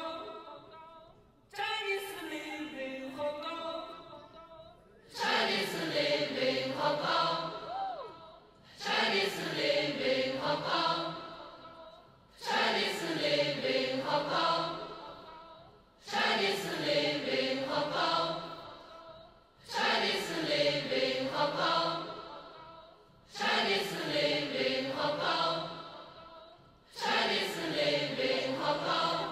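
A choir of many voices chanting one short phrase over and over, about every three and a half seconds, each time starting suddenly, dipping in pitch and rising again, then fading. The first two phrases are thinner and higher; from about five seconds in the chant is fuller and lower.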